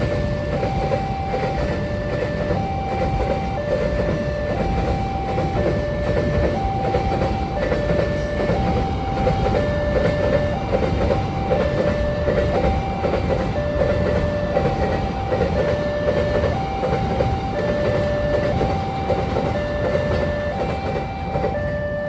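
Railway level-crossing alarm sounding its repeating electronic two-tone warning, about one tone a second, while a train runs past with a steady rumble and wheels clattering over the rails.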